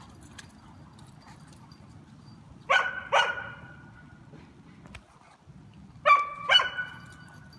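A dog barking: four loud barks in two pairs, the first pair about three seconds in and the second about three seconds later.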